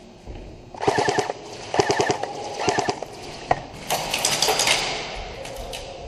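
Airsoft guns firing in several short, rapid bursts, about six in all, with a single shot about three and a half seconds in.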